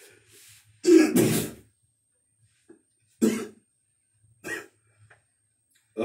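A man clearing his throat: a loud burst about a second in, then two shorter ones.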